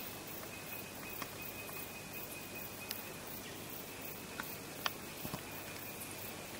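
Faint forest ambience: an even hiss with a thin steady high tone and a few short sharp ticks, the clearest about five seconds in.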